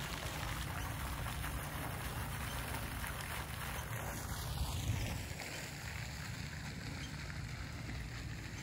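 Steady splashing and hiss of a garden fountain's jet falling into its pool, over low wind rumble on the microphone. The splashing eases a little after about halfway through.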